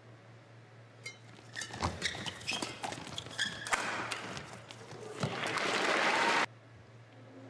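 Badminton rally: a quick run of racket strikes on the shuttlecock mixed with short shoe squeaks on the court, then the crowd applauding as the point ends, cut off suddenly near the end.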